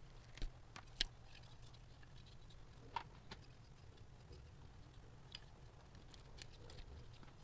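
Faint handling sounds of a small wooden part with plastic hoses: light clicks and taps, with sharper knocks about half a second in, a second in and three seconds in, over a faint steady low hum.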